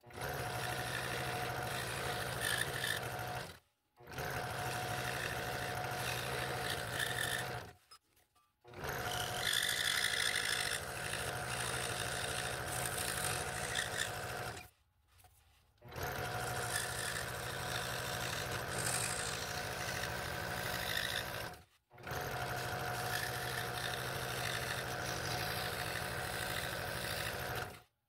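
Scroll saw with a fine number three blade running steadily and cutting small fretwork in wood, a constant hum and buzz. The sound breaks off suddenly into silence several times, around 4, 8, 15 and 22 seconds in, then comes back.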